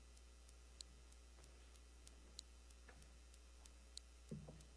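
Near silence: room tone with a steady low hum and faint, scattered ticks, and one brief, soft low sound near the end.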